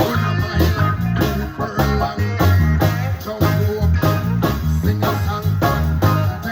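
A live band playing a reggae-style groove: a steady bass line and guitar over a regular drum beat.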